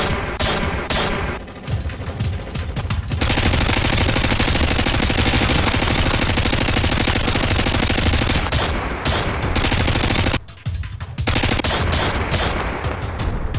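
Rapid gunfire, shots coming too fast to count, growing much louder about three seconds in. It breaks off briefly near ten seconds and then starts again, with music underneath.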